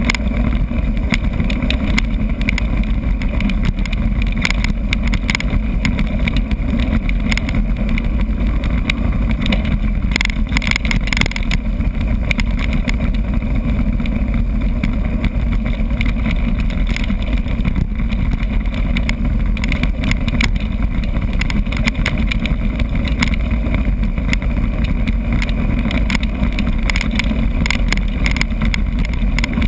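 Mountain bike descending a rough dirt forest trail at speed: a steady rumble of tyres and wind noise on the microphone, with constant rattling and clatter from the bike over the bumps, busiest about ten to eleven seconds in.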